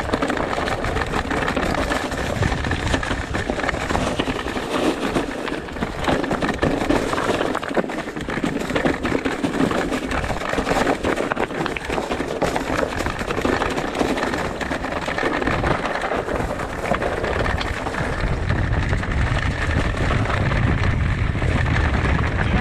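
Electric mountain bike ridden over a rough trail: continuous tyre noise and rattling with many small clicks and knocks, and a low rumble that grows stronger near the end.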